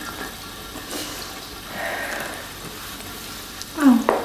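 A steady hiss of background noise, then a brief sigh falling in pitch near the end, followed by a small click.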